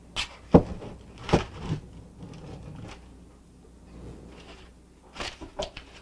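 Wooden rolling pin pressed and rolled over a sheet of crinkled kitchen aluminium foil to flatten it. The foil gives several sharp crackles and knocks in the first two seconds, the loudest about a second and a half in, and another short cluster near the end.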